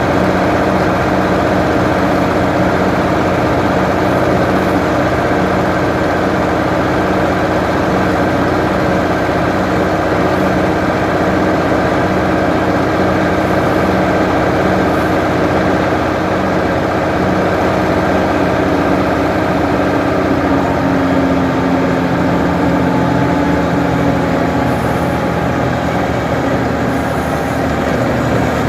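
Ford 550 backhoe's engine running steadily at a fairly constant speed, with its pitch shifting slightly about two-thirds of the way through.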